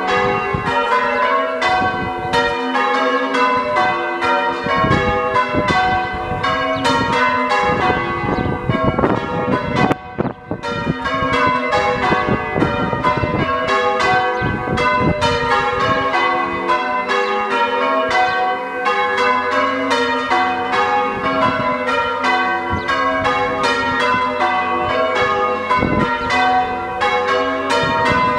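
A tower ring of six church bells being rung one after another in a continuous run of overlapping strikes, with a brief break in the sound about ten seconds in. The bells sound out of tune to the uploader, or as if in a minor key.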